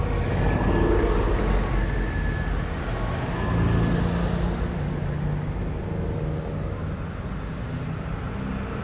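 Steady engine and road rumble of a moving car heard from inside the cabin, with city traffic noise around it.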